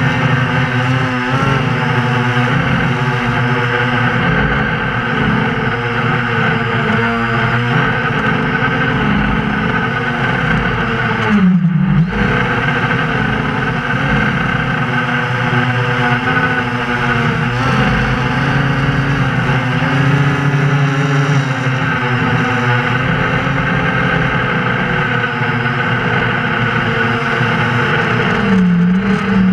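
FPV drone's motors and propellers whirring, picked up by its onboard camera, the pitch rising and falling with the throttle. The pitch drops sharply and swoops back up about twelve seconds in and again near the end.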